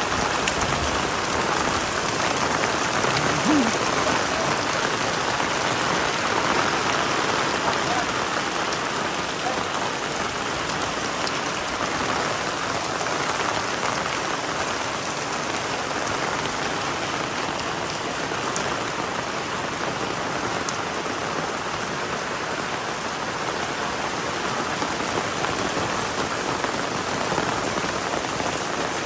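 Heavy tropical rain pouring down steadily, a dense even hiss with fine patter of drops.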